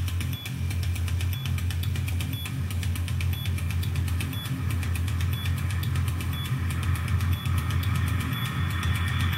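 Glitchy electronic music: a steady low bass hum under dense fine clicks and a short high beep about once a second. A high tone swells in near the end.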